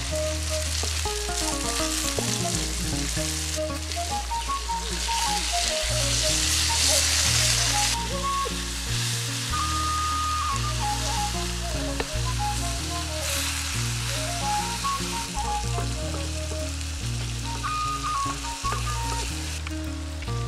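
Food frying in hot oil with a steady sizzle that grows louder for a few seconds midway, while background music with a stepping bass line plays over it.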